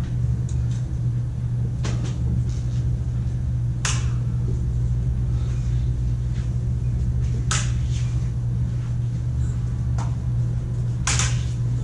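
Combat lightsabers humming steadily through their sound-font speakers, with four sharp clash cracks as the blades meet, the strongest about four, seven and a half and eleven seconds in.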